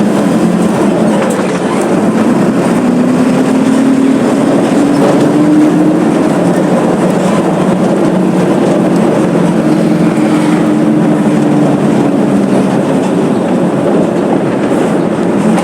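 Mercedes-Benz OF 1721 BlueTec 5 bus's diesel engine running loudly under way, its pitch climbing and falling twice as the revs rise and drop.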